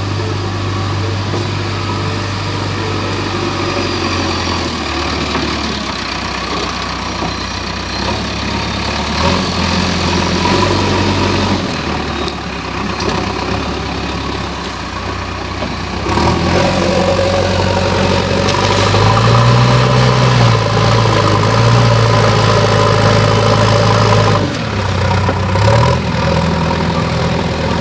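JCB backhoe loader's diesel engine running continuously, its speed rising and falling as the machine works under changing load. It runs louder and higher for several seconds past the middle, then drops back.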